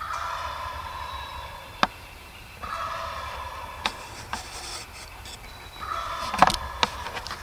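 Wild turkey gobbler gobbling three times, a few seconds apart, with sharp clicks in between.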